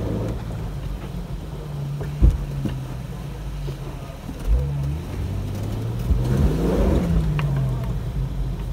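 Jeep Wrangler TJ engine working slowly up a rocky trail, revving up and dropping back about six to seven seconds in. A sharp knock about two seconds in and a heavier thud at about four and a half seconds.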